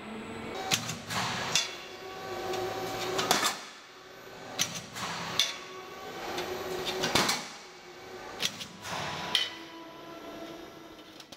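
A roll forming line for C-profiles running with a steady machine hum. Sharp metallic clanks come every one to two seconds, often in pairs, from the cut-off unit at the end of the line working on the formed profile.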